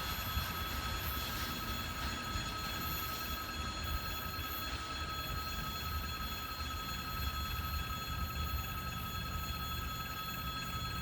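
Freight train of gondola cars heard at a distance: a quiet, steady low rumble with several faint steady high-pitched tones over it.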